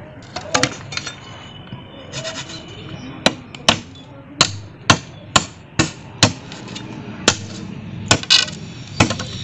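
Green bamboo being chopped to length with a blade: about eleven sharp, irregular strikes, roughly two a second, starting about three seconds in.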